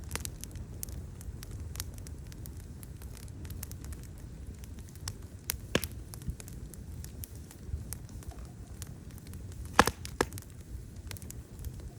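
Outdoor wood fire burning with a steady low rumble of flames and scattered sharp crackles and pops, the loudest a quick cluster of pops about ten seconds in.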